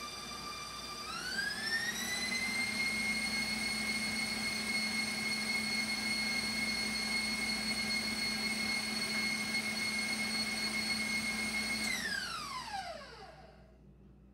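Electric stand mixer beating cake batter. Its motor whine rises in pitch about a second in as the speed is turned up, runs steady, then falls in pitch and dies away as it is switched off near the end.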